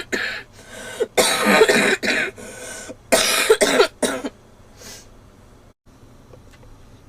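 A girl coughing: a fit of harsh coughs in quick succession, in about three clusters, that stops about four seconds in.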